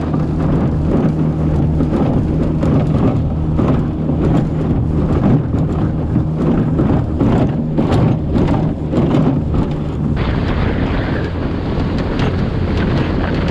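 Wind buffeting the microphone and a canoe's hull slapping through choppy water at speed, over the steady drone of a small outboard motor. The sound changes abruptly about ten seconds in.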